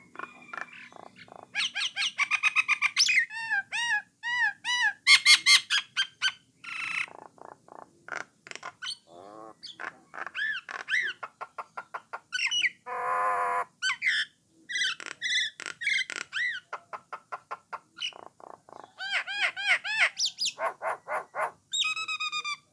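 Common myna (jalak nias) singing a varied, continuous song: fast runs of repeated whistled notes, clicks and chatter, with one harsh rasping call about halfway through.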